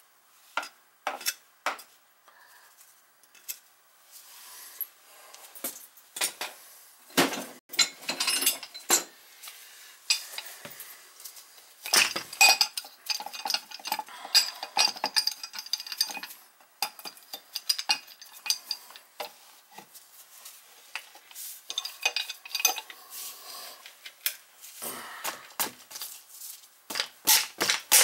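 Steel pipe wrench clanking and scraping on a rusted iron sump pump while the PVC discharge pipe's fitting is wrenched off the pump outlet: many sharp metallic clinks and knocks, some with short ringing, in uneven clusters.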